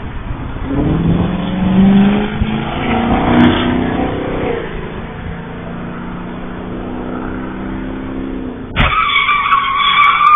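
Traffic at an intersection through a camera microphone: vehicles running and passing, with engine tones rising and falling. Then, suddenly, about nine seconds in, a loud sustained tyre squeal.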